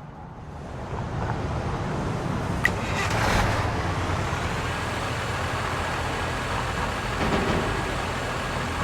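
A steady vehicle-like engine rumble that builds up over the first second or so, with a single short click about two and a half seconds in.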